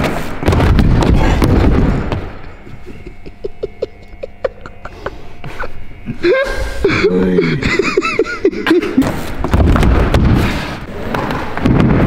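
Dirt jump bike tyres rolling over wooden skatepark ramps, dying down to light clicks after a couple of seconds. Midway a person groans and laughs in pain, and near the end the tyres roll across the wooden ramps again.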